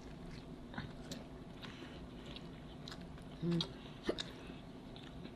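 A person chewing a mouthful of double cheeseburger close to the microphone: soft wet mouth clicks and smacks, with a short hummed "mm" about three and a half seconds in.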